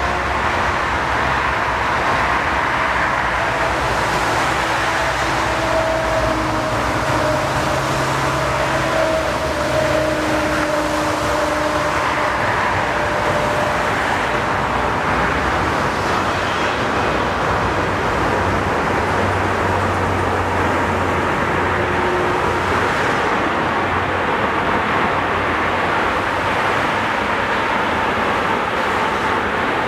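Jet engines of an Airbus A380 landing and rolling out on a wet runway: a steady, loud rushing noise with faint engine tones that drift slightly lower in places.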